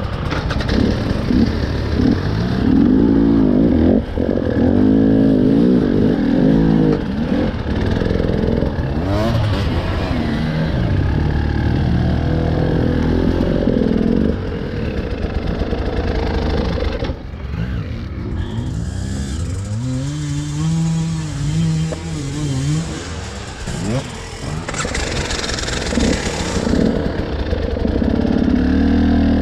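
Motorcycle engine running and revving, its pitch rising and falling repeatedly as the throttle is opened and closed.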